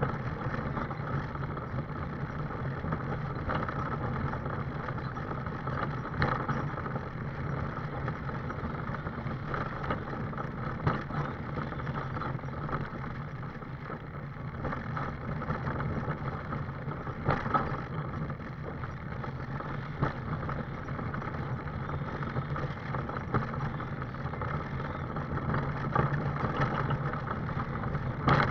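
Scooter riding along a tarmac road: a steady motor hum under the rolling noise of its wheels, with a few short knocks over bumps in the surface.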